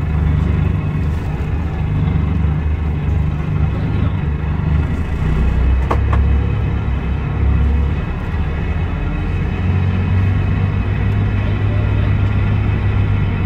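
Scania DC9 five-cylinder diesel engine of a Scania K320IB coach running steadily. There is one sharp click about six seconds in.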